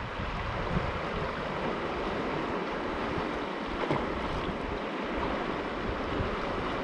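Fast, shallow creek rushing over rocks and bank ice in a steady wash of water noise, with wind buffeting the microphone in the low end.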